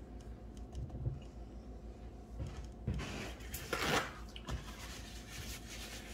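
Quiet room with faint handling noises: a soft rustle about four seconds in and a light click shortly after.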